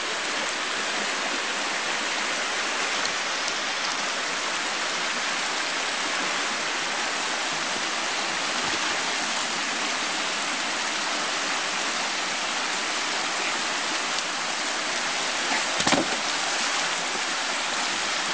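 Fast forest stream rushing over rocks and small rapids, a steady wash of water noise. A single short knock sounds near the end.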